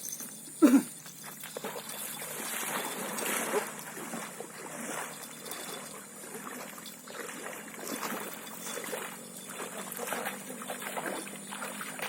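Water splashing and trickling in irregular small sloshes, with one brief, loud pitched sound falling in pitch less than a second in.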